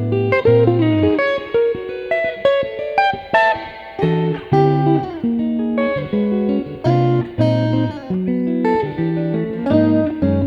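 Electric guitar with Mtone SSS pickups played with a clean tone: a flowing run of picked single notes and chords over sustained low notes, each note attacking cleanly and ringing out.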